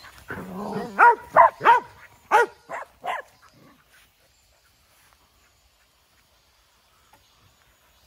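Dog giving a short low growl, then barking six times in quick succession during rough play with other dogs.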